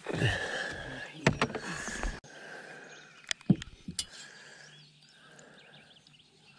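Several sharp knocks and thumps on a bass boat's deck as gear is handled, over a faint steady high-pitched whine.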